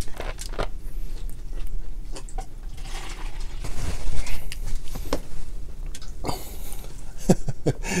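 Seafood boil being eaten by hand: crab and lobster shells cracking and being picked apart, with wet chewing. It comes as an irregular string of clicks and crackles.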